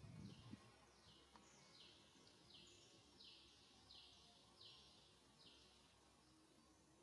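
Faint outdoor ambience with a repeating animal call: a buzzy note sliding down in pitch, about once every three quarters of a second. There is a brief low rumble right at the start.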